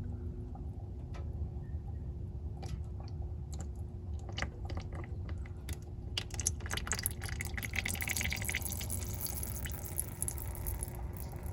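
Dark, thin used engine oil draining from the oil pan into a bucket: a steady pour with scattered drips and splashes, growing busier and hissier about halfway through.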